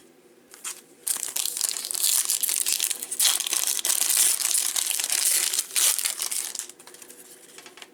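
Crinkly trading-card pack wrapper being torn open and crumpled by hand: a dense run of crackling that starts about a second in and stops shortly before the end.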